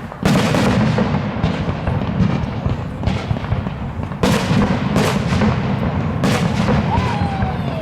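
Fireworks display: aerial shells bursting with heavy booms near the start, about four seconds in and again about two seconds later, over continuous crackling and popping.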